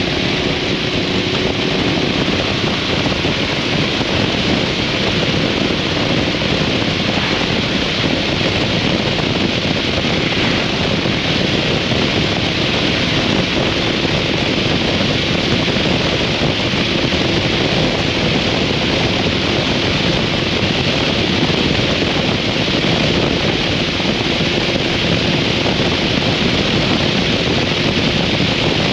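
Steady rush of wind over the microphone of a motorcycle riding at a constant speed. Underneath is the faint, even tone of the 2003 Harley-Davidson V-Rod's liquid-cooled V-twin engine.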